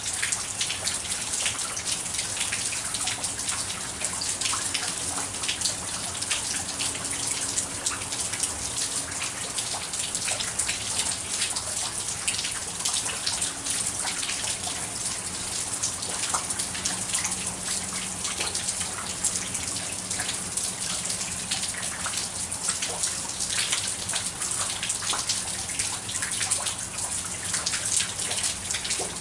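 Steady rain falling, with many single drops spattering close by.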